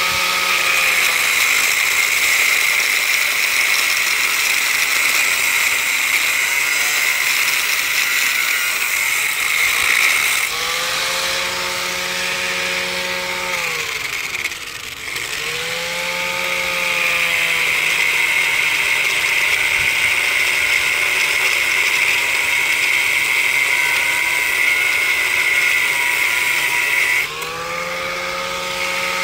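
Electric angle grinder cutting into the old metal post of a basketball hoop set in concrete: a high grinding screech over the motor's hum. About ten seconds in the disc comes off the metal and the motor speeds up; around the middle it briefly winds down and spins back up before biting again; near the end it lifts off once more and runs free.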